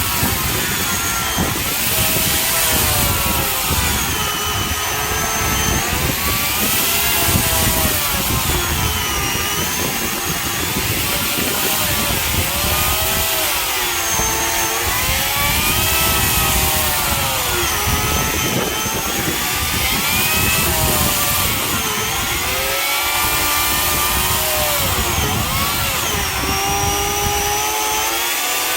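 Electric chainsaw cutting firewood, its motor whine rising and falling again and again as the chain bites into the wood and eases off.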